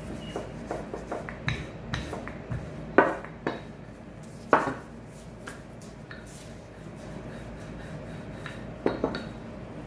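A wooden rolling pin and a knife knock and clack against a countertop while bun dough is rolled out: a string of light taps, sharp clacks about three and four and a half seconds in, and a quick double knock near the end.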